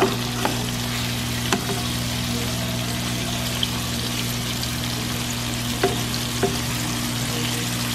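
Steaks sizzling as they fry in butter in a nonstick pan, a steady hiss, with a few sharp clicks as tongs turn the steaks.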